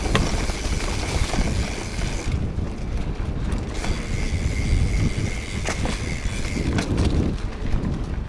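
Steady rumbling movement noise with scattered knocks, and a high steady drone that drops out twice for a second or so.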